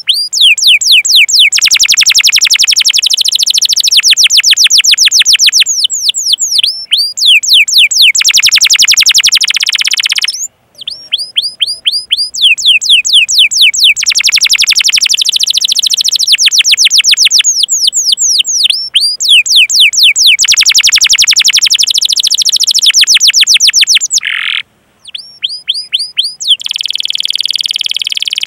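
Domestic canary singing long runs of rapid, evenly repeated downward-sweeping 'cuit cuit' chirps, with two brief breaks. Near the end it changes to a denser, steadier roll.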